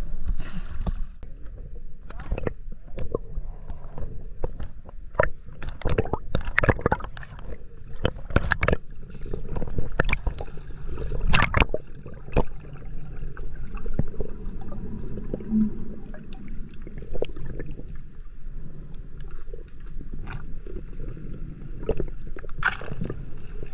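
Choppy ocean water sloshing and splashing against a camera at the water's surface, with many sharp splashes. About halfway through the camera goes under, and the sound becomes a steadier underwater wash with only occasional clicks.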